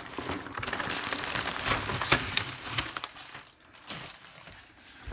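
Bubble wrap crinkling and rustling with many small crackles as it is handled and lifted off the contents of a cardboard box; the crinkling dies down after about three seconds.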